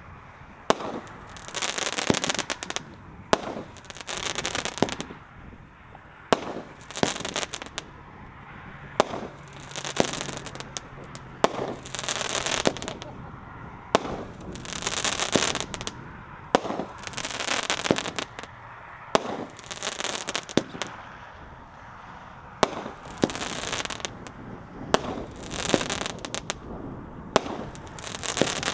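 Brothers Pyrotechnics 'Badge of Honor' 500-gram multi-shot fireworks cake firing: a sharp report every one to two seconds as each shot launches, each followed by a spell of crackling from the crackling palm breaks.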